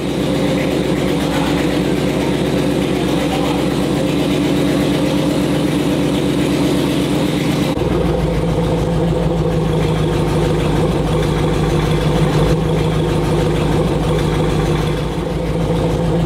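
Chevrolet LT1 V8 running steadily at idle. The sound changes abruptly about eight seconds in to a deeper, more pulsing idle.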